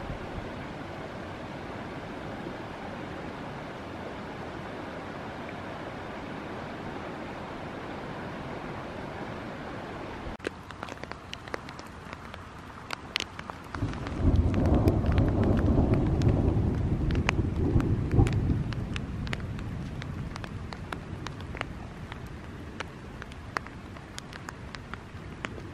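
A mountain stream running with a steady rush. About ten seconds in, scattered raindrops start ticking, and a few seconds later a low rumble of thunder swells for several seconds and slowly dies away as the thunderstorm arrives.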